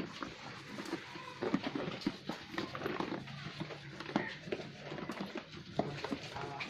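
Goats moving about a pen, their hooves knocking and shuffling irregularly on a hard floor, with a few faint animal sounds.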